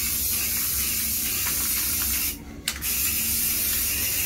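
Aerosol can of spray paint hissing as it is sprayed in a steady stream. The spray stops briefly a little past halfway, then starts again.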